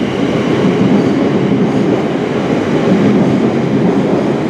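Class 444 Desiro electric multiple unit pulling out of the platform, its wheels and traction equipment making a loud, steady rumble.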